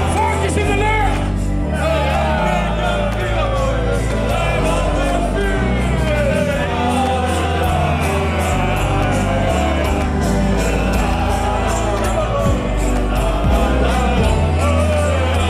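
Loud music with a steady beat and a crowd of people singing along together.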